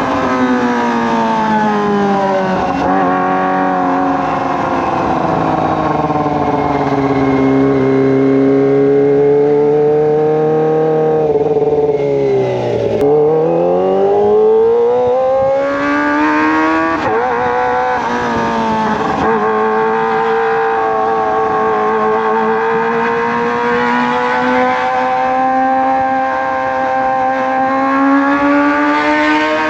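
Kawasaki ZX-25R's 250 cc inline-four running through a Racefit Slash aftermarket exhaust while being ridden. The engine note falls slowly for about twelve seconds, dips and then climbs sharply, rises again with two brief breaks, and holds fairly steady near the end.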